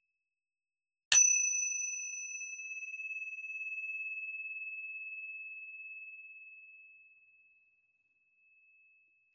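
A pair of mini cymbals struck together once, about a second in, ringing on one clear high tone that slowly fades away over about six seconds.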